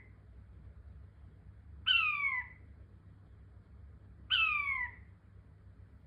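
King quail (Chinese painted quail) calling twice, about two and a half seconds apart. Each call is one loud note that falls in pitch over about half a second.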